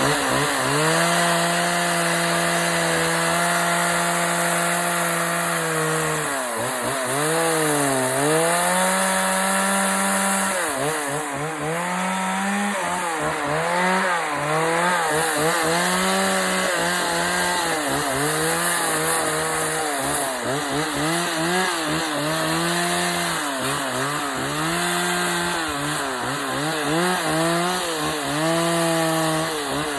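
Chainsaw running at high speed and cutting into wood, its engine pitch dipping and recovering again and again as the chain bites and comes free.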